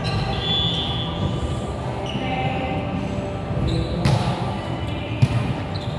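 A volleyball struck twice, two sharp slaps about a second apart near the end, ringing in a large hall over a steady background of players' voices and movement.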